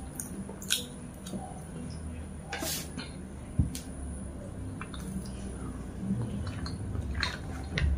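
Close eating sounds: wet mouth clicks and smacks while chewing satay, with a wooden skewer scraping through thick sauce on paper wrapping. A dull knock about three and a half seconds in, over a steady low hum.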